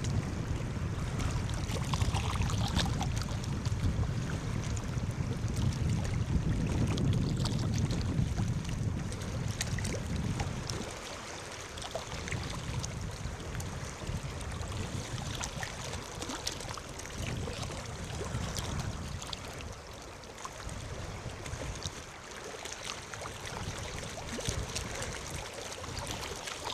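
North Sea waves washing and breaking on the shore: a steady rushing of water. A deep low rumble under it drops away about a third of the way through, leaving the lighter wash with faint crackles of foam.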